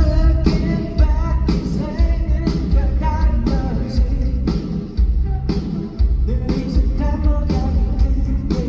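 Live pop-rock band crashing in together with a loud first hit, then playing with a heavy low beat about once a second while a man sings over it.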